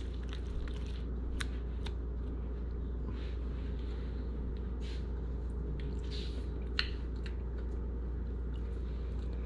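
Steady low hum of room noise, with a few faint, scattered clicks.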